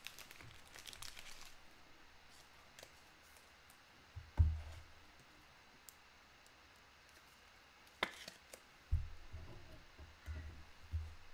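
Trading cards being handled and set down. There are a few faint clicks, one dull thump about four seconds in, then a sharp click and several light knocks against the table and acrylic card stand near the end.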